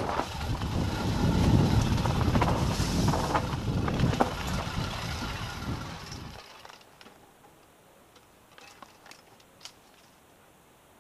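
Wind buffeting the camera's microphone over the rattle and clatter of a mountain bike descending a rocky trail. About six seconds in, the sound fades away to near silence, leaving only a few faint ticks.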